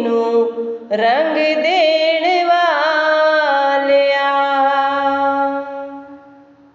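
A single singing voice in a Punjabi devotional shabad, moving through melodic turns and then holding one long note that fades away near the end.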